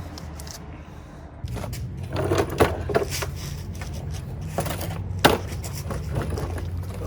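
Handling noise from a new spin-on oil filter being fitted by hand under a car: scattered short scrapes, clicks and knocks, the sharpest about five seconds in, over a steady low hum.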